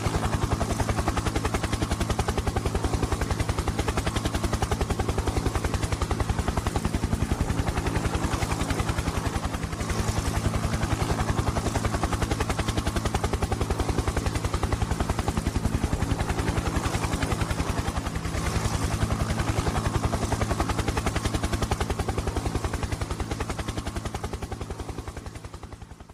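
Helicopter rotor sound: a steady, rapid blade chop over a low drone, fading out over the last few seconds.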